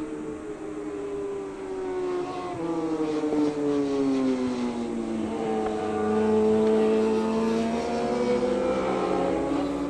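Racing superbike engine at high revs passing the track. Its pitch drops over the first few seconds, holds steady in the middle, and climbs again near the end. It is loudest about two-thirds of the way through.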